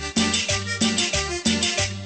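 Dance music played through a sound system, with a steady beat and a repeating bass line.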